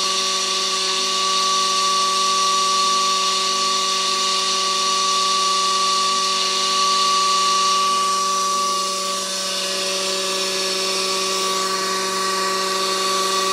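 Pool pump motor running with worn-out bearings, giving a loud, steady high-pitched whine over a grinding hiss.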